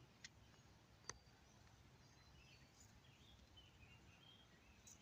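Near silence outdoors: faint short bird chirps here and there, and two small clicks about a quarter second and a second in.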